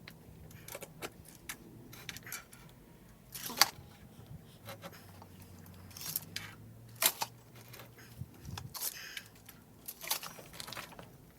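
Tools and hardware being handled in a workshop: scattered light metallic clinks and knocks, with a faint low hum through the middle.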